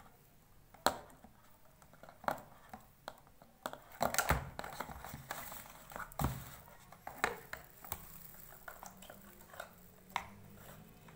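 Handling noise of a plastic hair straightener brush and its power cord being moved about in a cardboard box: irregular knocks, clicks and rustles, loudest about four seconds in.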